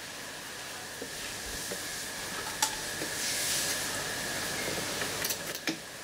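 High-voltage arc from a ZVS driver and flyback transformer running inside a clear incandescent light bulb: a steady hiss with a thin high whine, and sharp snaps about two and a half seconds in and again near the end as the arc strikes inside the bulb.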